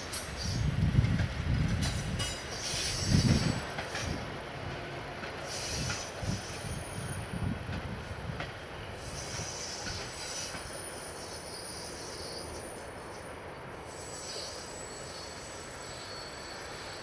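Passenger coaches rolling past on the rails with a steady rumble, their wheels squealing now and then in thin high tones. Heavy low thuds come in the first few seconds, the loudest about a second and three seconds in.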